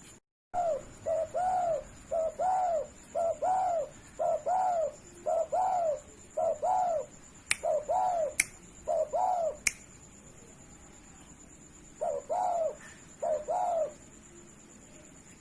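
Spotted dove cooing, a quick run of short arched coos about two a second, then a pause and a few more coos near the end. Three sharp clicks sound in the middle, over a faint steady high whine.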